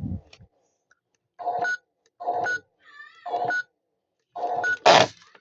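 Toy washing machine giving a series of short electronic beeps, about one a second with silence between. A warbling tone comes near the middle, and a louder noisy burst near the end.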